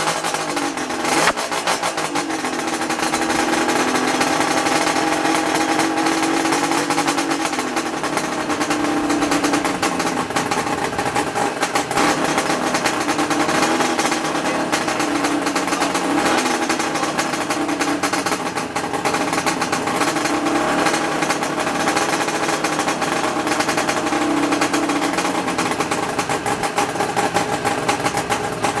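1975 Suzuki GT550's air-cooled two-stroke three-cylinder engine running after restoration, with a short blip of the throttle about a second in. After that it settles into a steady run, its speed drifting slightly up and down.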